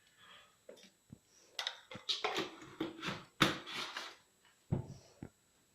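Detergent being added to a dishwasher's detergent dispenser: a run of rustling scrapes, then a few sharp clicks and two knocks near the end.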